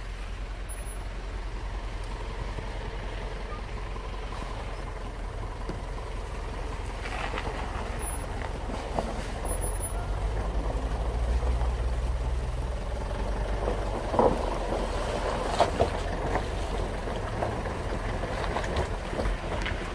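A 4x4's engine running at low speed as its tyres roll through a shallow muddy stream, with water and mud sloshing around the wheels. It gets a little louder about a third of the way through, and a few sharp knocks come about two-thirds of the way in.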